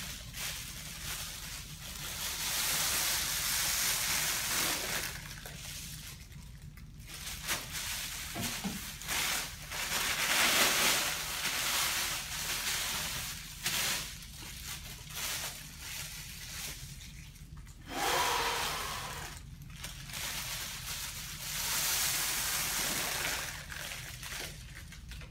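Thin plastic Bernoulli bag rustling and crinkling as it is handled and pressed flat, in several hissing spells of a few seconds each.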